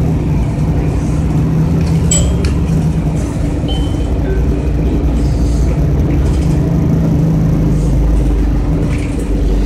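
Cabin of a 2002 Orion VII CNG transit bus under way: the engine and drivetrain give a steady low hum with road rumble, and light rattles and clicks come from the cabin. A short high beep sounds just before four seconds in.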